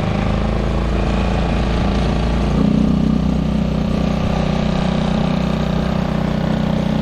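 Rebuilt Suzuki 6 hp outboard motor running smoothly under way, over a rush of water, getting louder about two and a half seconds in.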